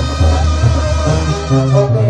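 Loud Latin brass-band music with many held notes over a low bass line that changes note several times a second.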